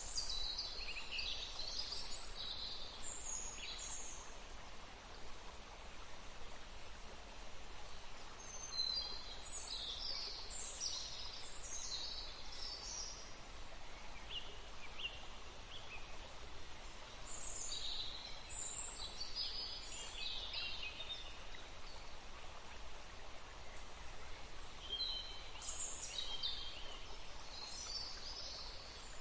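Songbirds singing in phrases of quick high chirping notes, a burst about every eight seconds, over a steady rush of flowing water.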